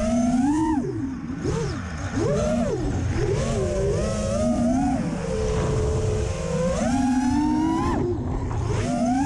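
Electric motors of an FPV freestyle quadcopter (four T-Motor F40 III, 2400KV) whining as the drone flies, the pitch swooping up and down with the throttle: several quick rises and falls, then a long climb that cuts sharply down about eight seconds in.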